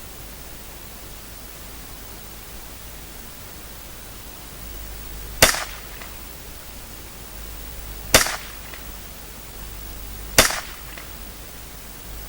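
Three shots from a Henry Youth .22LR lever-action rifle, spaced about two to three seconds apart, each followed by a short echo.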